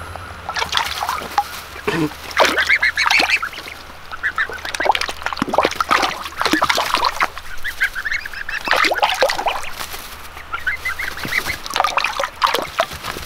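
Goslings and a duckling splashing about in a shallow pan of water, with many short high peeping calls from the goslings throughout.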